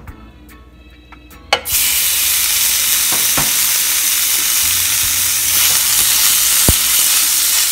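Chopped pork belly hits a hot frying pan about a second and a half in and starts sizzling loudly and steadily, with a spatula stirring it as it fries.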